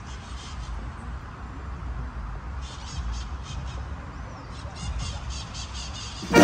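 Outdoor ambience: a steady low rumble with faint, high chattering bird calls in short runs through the middle and a single small rising-and-falling chirp.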